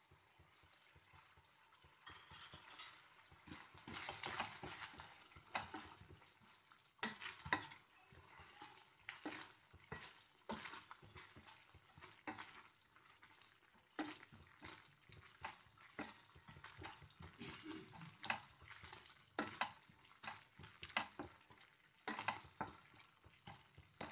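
Spatula stirring thick masala curry gravy in a non-stick pan: irregular scrapes and knocks against the pan, starting about two seconds in.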